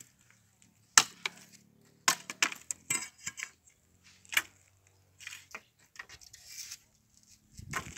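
Wood bonfire burning, with sharp pops and snaps at irregular intervals, the loudest about a second in, and a few short hissing stretches later.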